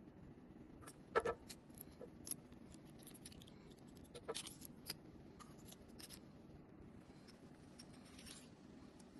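Small metallic clicks and clatter from handling a miniature spinning reel and a pen-sized telescopic fishing rod: a sharp click about a second in, a quick cluster of clicks about four seconds in, and lighter ticks between.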